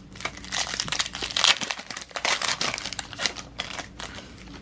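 A plastic foil trading-card pack wrapper crinkling as it is handled, a dense run of crackles that is busiest about a second and a half in and thins out near the end.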